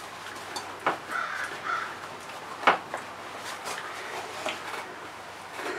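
Faint harsh bird calls, with two short sharp knocks about one and three seconds in, and paper-towel handling noise from hand wiping.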